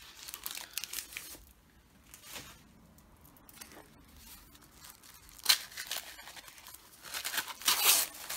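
Green paper wrapping on a boxed tarot deck being handled and torn open. It starts as faint rustles, with a sharp tap about two-thirds of the way through, then louder tearing and crinkling near the end.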